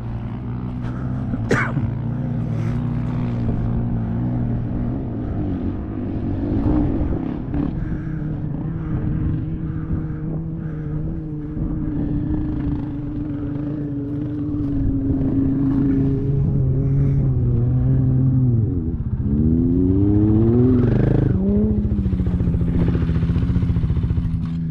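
A vehicle engine running steadily, revving up and dropping back near the end.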